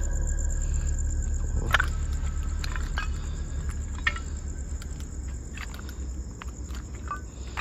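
Crickets trilling steadily at a high pitch, with scattered crunches and clicks of footsteps on rubble and broken tiles, the sharpest about two seconds in.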